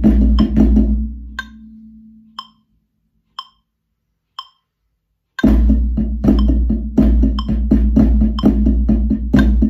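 Iron practice sticks playing fast clave-pattern flams on a drum over a backing track, stopping about a second in. Four metronome clicks follow, one a second (60 BPM), counting in. The sticks and backing come back in sharply after about five and a half seconds with the 3/2 clave pattern.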